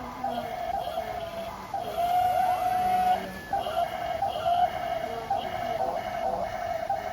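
Small electric motor of an RC toy vehicle whining steadily, its pitch wavering and dipping slightly as the load changes.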